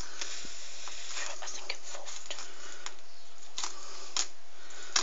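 Knife cutting along a red snapper's rib bones toward the spine: several short scrapes and clicks over a steady background hiss.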